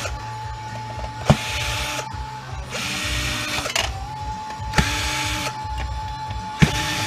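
Cordless drill-driver running in several short bursts, each under a second, backing screws out of a printer's metal frame, with three sharp clicks in between.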